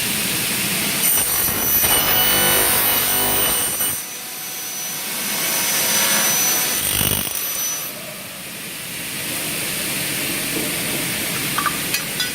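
Double-head aluminium cutting saw (F450) running with its saw motors on, cutting through a Xingfa aluminium profile. The cutting is louder, with a high whine, about a second in for some three seconds and again from about five to eight seconds, then the motors run on steadily. A few sharp clicks come near the end.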